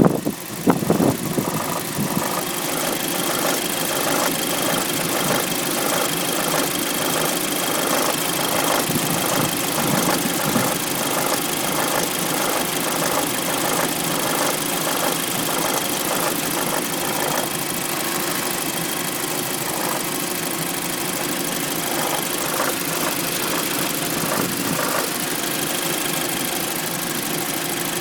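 2005 Audi A3 2.0 FSI four-cylinder petrol engine idling after a cold start with a loud noise, a fast even clatter over the idle. The owner suspects the tensioner, and says the noise fades to normal injector ticking after about three minutes. The first second is louder and more irregular.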